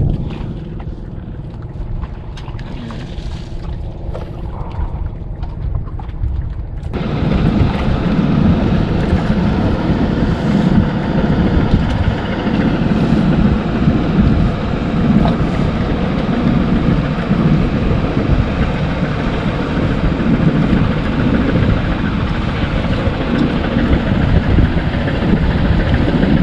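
A boat engine running steadily, with wind buffeting the microphone. About seven seconds in, the sound jumps abruptly to a louder, rougher rush of wind and engine noise that holds steady.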